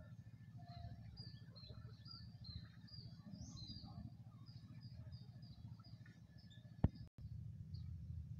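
Small birds chirping in quick repeated notes over a low steady rumble, with one sharp click about seven seconds in and a brief dropout just after.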